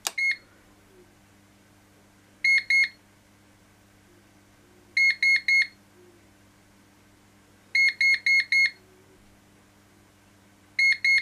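Daystate Air Wolf MCT air rifle's electronics beeping in counted groups as the gun steps through its program-mode stages. Short high beeps come once, then twice, three times and four times, the groups about two and a half seconds apart, with the next group starting near the end.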